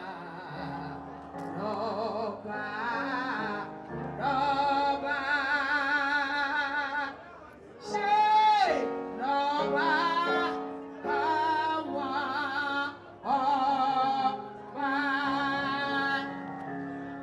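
A woman singing solo into a microphone through a PA: slow phrases of long held notes with a wide vibrato, broken by short pauses for breath.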